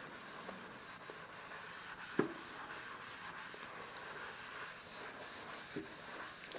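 Sponges, a round car sponge and a flat scrub sponge, rubbing over the wet, soapy bottom of a stainless-steel sink: a steady rubbing through foam. A sharp click about two seconds in and a softer one near the end.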